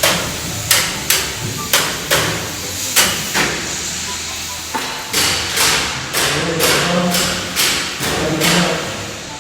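Repeated hammer blows, about two to three a second, with a short pause near the middle.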